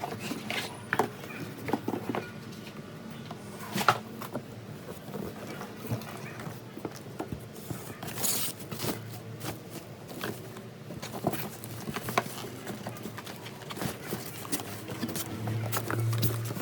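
Handling noises from unpacking a boxed appliance: irregular light knocks and clicks, with a short rustle about eight seconds in. A low hum grows near the end.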